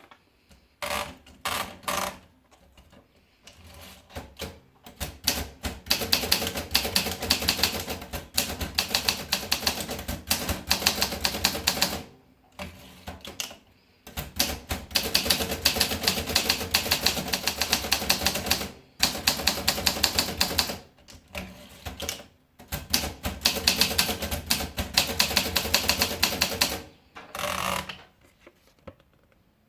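Olympia Progress typewriter being typed on. Its keystrokes come in fast runs several seconds long, with short pauses between them and a few single strokes near the start.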